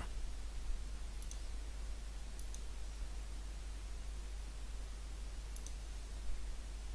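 Faint computer mouse clicks, a few scattered through and some in quick pairs, over a steady low electrical hum.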